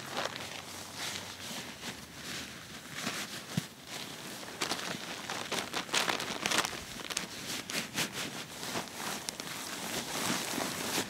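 Plastic ground tarp crinkling and rustling as a person kneels and shifts on it and handles fabric, in irregular rustles that are loudest about six seconds in.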